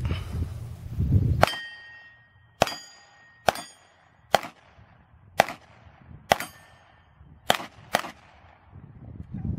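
Pistol shots fired at steel targets: eight shots at about one a second, the last two close together, several followed by the ringing clang of a hit steel plate.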